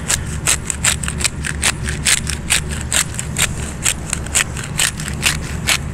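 Hand-twisted pepper grinder cracking peppercorns, a steady rhythm of short, crisp grinding clicks at about four or five a second, over a low steady hum.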